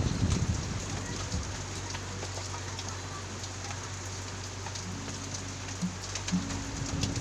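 Steady rain falling, an even hiss with scattered faint drips, over a low steady hum.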